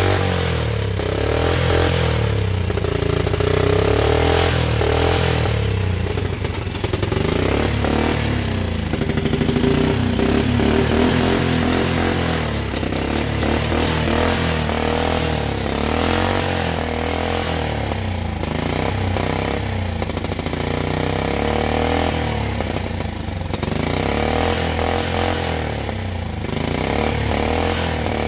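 Small horizontal single-cylinder motorcycle engine, converted to run on gas from a portable-stove canister, running steadily with its pitch drifting a little up and down.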